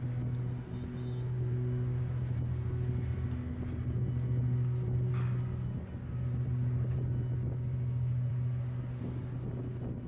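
Heavy diesel engines of a Volvo crawler excavator and an articulated dump truck running with a steady low drone. A short sharp knock sounds about five seconds in.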